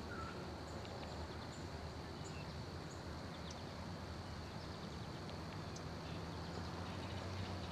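Summer field ambience: a steady high insect drone with scattered faint bird chirps over a low steady hum.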